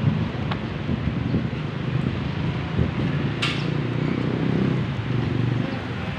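Street traffic: vehicle engines running and passing, heard as a steady low rumble that firms up in the second half. One sharp click about three and a half seconds in.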